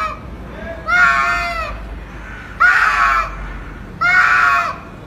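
Two domestic cats yowling at each other in an aggressive face-off: three long yowls, each under a second, about a second and a half apart, after the tail of another at the very start.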